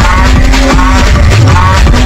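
Loud dance music with a steady beat.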